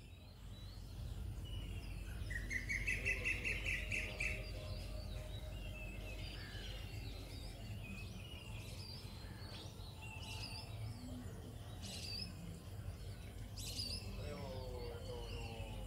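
Several birds calling and chirping, with a rapid trill about two to four seconds in and scattered short whistles throughout, over a low steady rumble.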